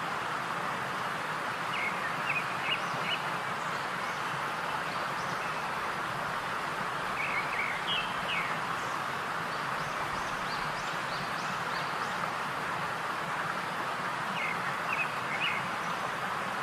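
Steady hissing noise with short bird chirps in three brief clusters: about two seconds in, around eight seconds, and near the end.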